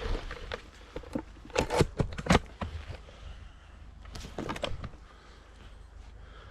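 Footsteps and rustling through woodland undergrowth, with two bursts of crackling and snapping: one about two seconds in, the loudest, and a shorter one about four and a half seconds in.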